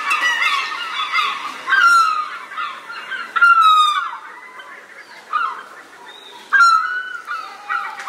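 Birds calling over one another: a chorus of honking calls that mostly fall in pitch, with louder, harsher calls about two, three and a half and six and a half seconds in.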